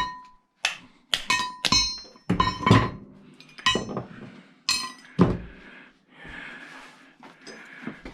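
Metal parts from a dismantled battery charger being handled and tossed during scrap sorting: a string of about ten clanks and knocks, several with a short metallic ring, then quieter handling near the end.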